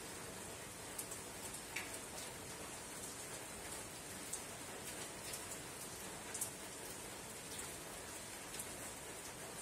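Soft, steady rain falling on a tin roof: an even hiss with scattered drops ticking on the metal, a few of them louder than the rest.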